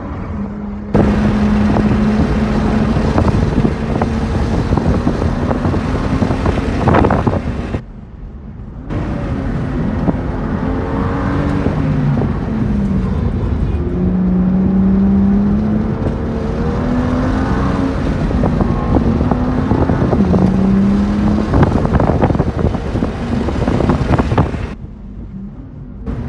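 Race-track car engine running hard under load, its pitch climbing and falling as it goes up and down the gears, under a loud rush of wind noise. The rush drops away briefly twice, about a third of the way in and near the end.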